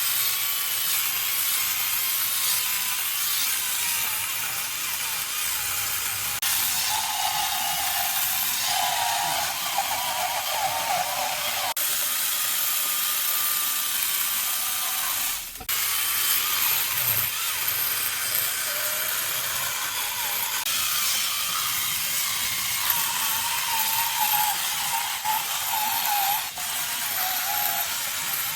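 Chainsaw running and cutting wood, a steady harsh whine whose pitch wavers as it bites in. It drops out briefly about halfway through.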